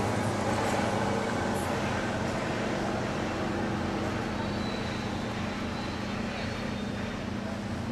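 A motor engine running with a steady low hum that slowly fades.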